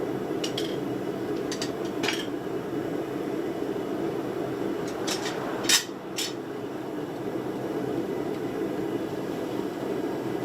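Steel bar pieces clinking and clanking against each other and against metal as they are handled, about half a dozen sharp metallic knocks, the loudest about six seconds in, over a steady low roar.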